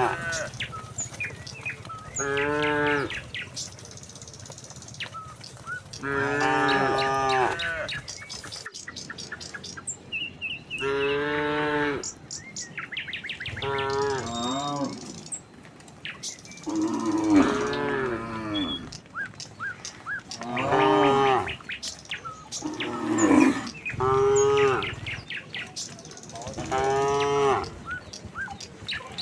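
Cattle mooing again and again, one long drawn-out call every few seconds from more than one cow, the calls differing in pitch.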